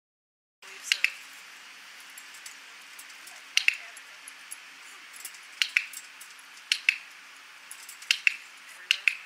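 Dog-training clicker clicked six times at irregular intervals a second or two apart, each a sharp double click of press and release. The clicks are being charged, each one marking a treat given to the dog.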